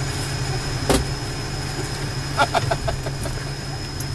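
Steady low drone of a military vehicle's running engine heard inside the crew compartment, with a faint steady high whine. A sharp knock about a second in and a quick run of clicks and knocks around two and a half seconds in come from a man in body armour climbing up into the gun turret.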